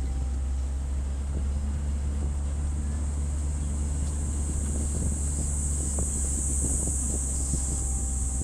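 Steady in-cabin noise of a car driving along a road: a low engine and road rumble, with a few faint light clicks or rattles.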